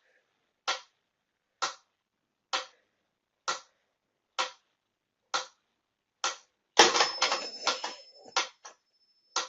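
A row of single sharp clicks or knocks, about one a second, evenly spaced, breaking into a quick flurry of clicks near the end with a faint high steady tone under them.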